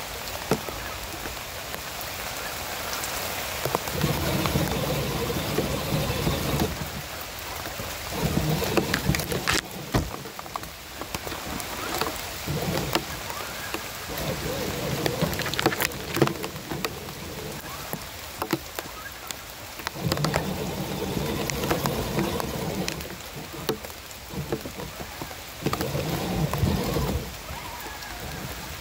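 Electric motors and gear drivetrains of RC crawlers whining in short bursts, several times, as they are throttled along a rough trail. A steady hiss with scattered ticks runs underneath.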